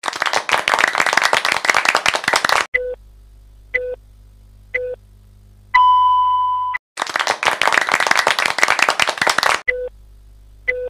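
Quiz sound effects: a burst of applause lasting about two and a half seconds, then short timer beeps about a second apart, a steady beep held for about a second, a second burst of applause, and more short beeps near the end.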